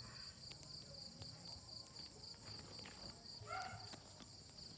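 Wood fire crackling softly, with scattered faint pops, under a steady high pulsing insect trill. One brief call sounds about three and a half seconds in.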